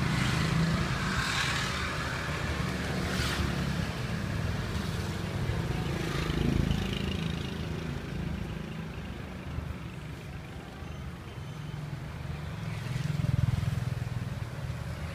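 Street traffic: a steady low rumble of vehicle engines, swelling louder as vehicles pass about six seconds in and again near the end.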